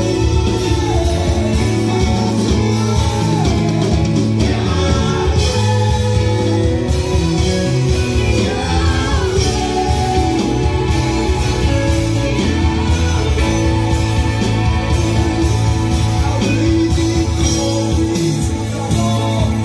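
Live gospel worship music: a band of drums, electric guitar and keyboard playing, with singers on microphones.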